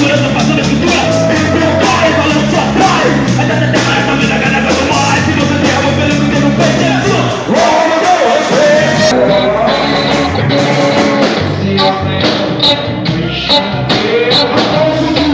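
Live heavy rock band playing loud with distorted guitars, bass and drums, and a singing voice over it.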